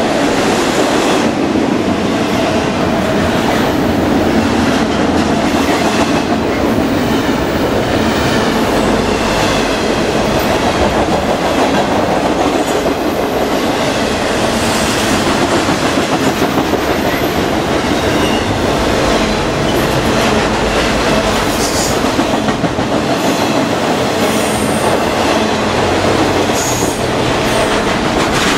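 Intermodal freight train cars rolling past close by: a steady, loud rumble of steel wheels on rail with rapid clacking, and a faint thin wheel squeal now and then.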